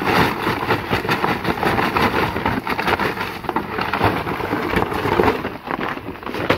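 Dried corn cobs being poured from a paper sack into a metal barbecue firebox: a dense, continuous clattering of many small hard pieces, easing off near the end.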